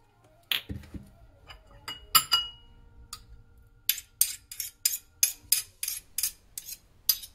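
Metal spoon knocking and clinking against a ceramic bowl: a few separate knocks and one ringing clink in the first couple of seconds, then a steady run of scraping taps, about three a second, as cream cheese and Greek yogurt are stirred together.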